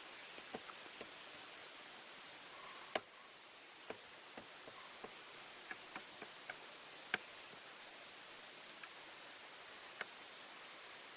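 Faint, steady high-pitched buzz of insects, with scattered small ticks and clicks; sharper clicks stand out about three, seven and ten seconds in.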